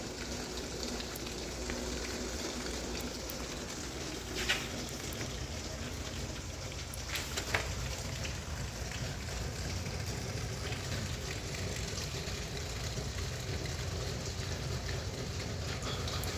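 Steady rain heard from inside a garage: a constant even hiss, with a couple of sharper ticks about four and a half and seven and a half seconds in.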